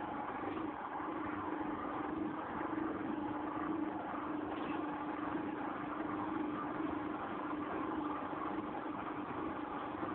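Spiral dough mixer running empty: its electric motor and drive hum steadily as the spiral hook turns in the bowl.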